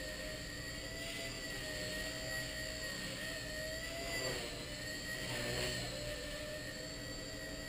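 Blade Nano CP micro collective-pitch RC helicopter in flight: a steady high-pitched whine from its motors and rotors that wavers slightly in pitch, dipping a little and swelling louder briefly about four and five and a half seconds in.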